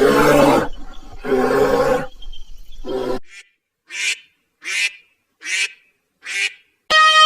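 Animal calls: three long calls in the first three seconds, then four shorter calls about two-thirds of a second apart. A different steady pitched sound starts just before the end.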